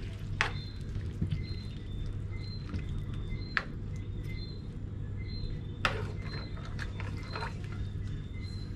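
Metal spoon stirring a sauce in a frying pan, with a few sharp clinks of the spoon against the pan, over a steady low hum. Faint short high chirps repeat evenly in the background.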